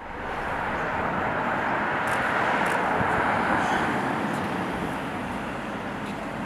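Steady outdoor background noise, an even hiss-like din with a few faint ticks.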